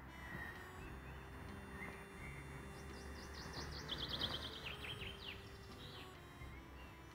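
A small songbird sings a quick run of high, falling notes about three seconds in, lasting two to three seconds, over a faint steady low outdoor background.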